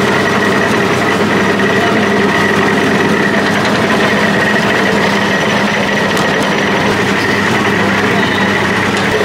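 Market crowd chatter over a steady machine hum, like a running motor or engine.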